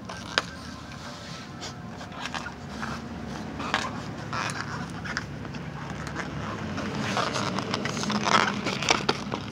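Dogs chewing: scattered scraping and clicking of teeth on a chew, then, louder near the end, the crackle and crunch of a dog chewing a crumpled plastic water bottle.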